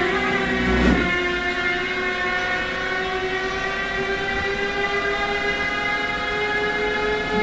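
Siemens Vectron Class 193 electric locomotive passing with a freight train, its traction equipment giving a many-toned whine that slowly rises in pitch as it picks up speed. There is a single clank about a second in.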